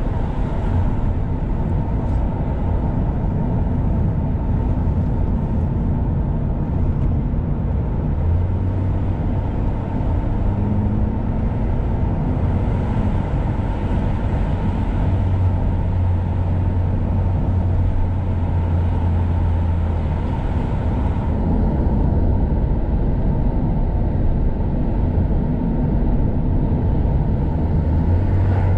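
A car driving along a road: steady engine and tyre rumble, with a low engine hum that strengthens for a stretch partway through and again near the end.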